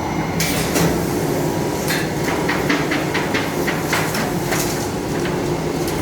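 Semi-automatic clamshell screen printing machine running: a steady mechanical hum with a quick run of sharp clicks and clacks from its mechanism between about two and five seconds in.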